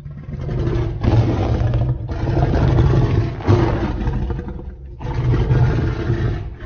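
Deep monster roars and growls, made from film creature sound effects: about four in a row, each a second or more long, with short breaks between them.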